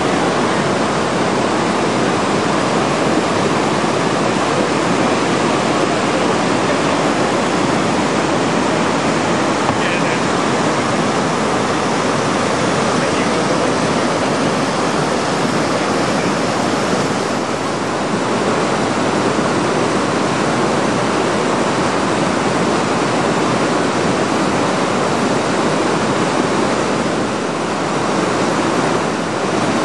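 Whitewater river rapids rushing steadily: a loud, constant noise of churning water over boulders.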